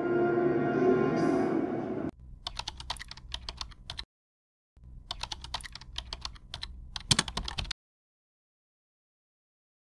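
A cartoon's soundtrack playing on a television cuts off abruptly about two seconds in. A keyboard-typing sound effect follows: rapid clicks in two runs with a short break between them, stopping near the three-quarter mark.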